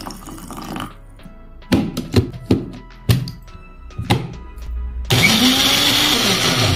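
A small bullet-style blender grinds raw mango. It kicks in suddenly about five seconds in and runs loudly, its motor tone rising and then sinking. Before it come a few sharp knocks.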